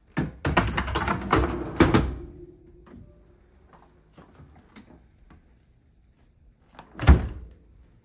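Wire dish rack of a Hisense dishwasher rolled into the tub, rattling and clattering for about two seconds, then a few light taps. About seven seconds in, the dishwasher door is shut with one loud thud.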